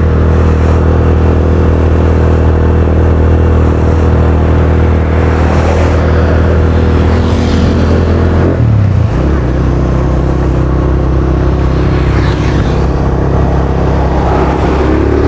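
Suzuki Thunder 125's single-cylinder four-stroke engine on the road, heard through an aftermarket Yoshimura R11-style muffler. The exhaust note holds steady, breaks briefly about eight and a half seconds in, then settles back to a steady note.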